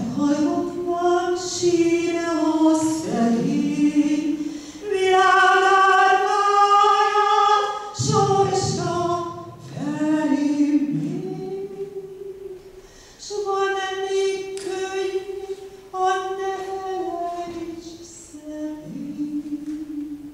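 A woman singing solo and unaccompanied in Hungarian, in phrases with long held notes, the longest held about five seconds in, and short breaths between phrases.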